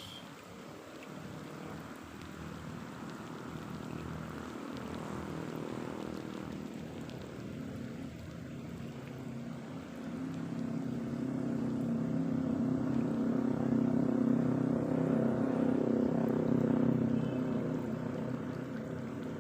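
A motor engine running steadily, growing louder about halfway through and easing off near the end, as if passing by.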